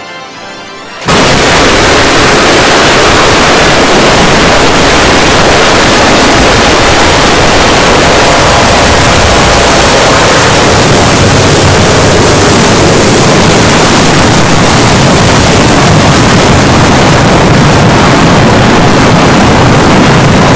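Jumpscare sound effect: a quieter tune cuts out about a second in, replaced by a sudden, extremely loud wall of heavily distorted noise that holds steady.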